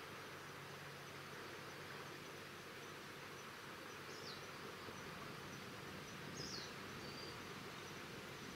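Faint outdoor ambience: a steady hiss with insects trilling, and two brief downward-sliding chirps about four and six and a half seconds in.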